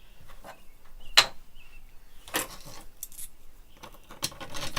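3D-printed plastic parts clicking and knocking together as they are handled and fitted, in a few separate clacks, the sharpest about a second in.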